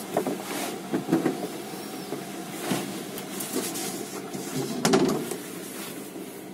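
The plywood lid of a van's bench box is handled and lowered, giving several wooden knocks with a louder thump about five seconds in. Underneath runs the steady hum of a diesel air heater working at full power.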